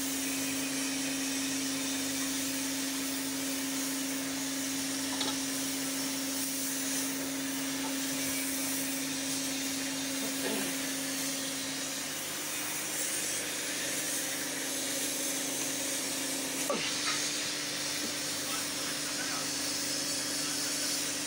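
Steady whir and hiss of an electric air blower running, with a constant hum that steps slightly higher about twelve seconds in and back down near seventeen. A few light knocks come from the steel moulding flasks being handled.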